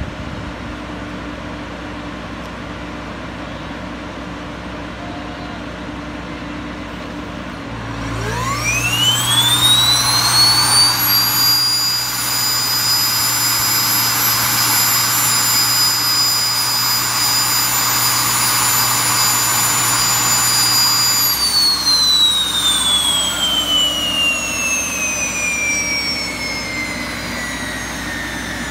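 Pratt & Whitney PT6A-60A turboprop of a Beechcraft King Air 350i spun on its starter for a compressor wash, over a steady hum. About eight seconds in a whine rises steeply, then holds steady with a low hum beneath it for about thirteen seconds. The starter then cuts out, and the whine slowly falls as the compressor spins down.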